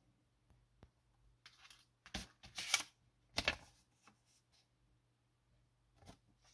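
Handling noise from a small plastic zip-lock bag and a paper card: a few short rustles and crinkles about two to three and a half seconds in, with scattered light clicks.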